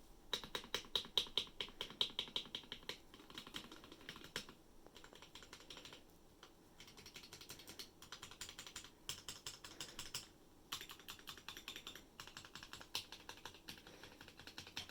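Typing on a Womier K87 mechanical keyboard with Gateron Yellow linear switches, lubed with 205g0 and filmed: fast runs of keystrokes with a few brief pauses.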